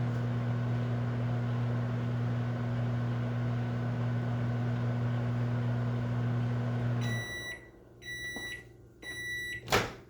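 Microwave oven running with a steady low hum, which stops about seven seconds in. The microwave then gives three short high-pitched beeps to signal the heating is done. A sharp clunk follows near the end.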